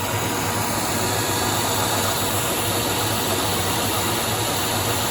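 CNC lathe running at 425 RPM while a carbide insert rough-turns a heat-treated 4140 steel shaft, with the steady hiss of a spray mist coolant over a low, even hum.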